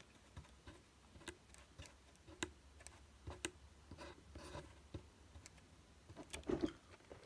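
Faint scattered clicks and soft taps of fingers handling a card-and-plastic model building while pressing scenic grass tufts onto glue, with a short cluster of louder handling noise near the end.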